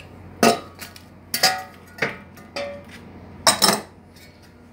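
Metal muffler parts knocking together: a handful of sharp, ringing metallic clanks about a second apart, as the end cap is handled and fitted against the stainless muffler tube.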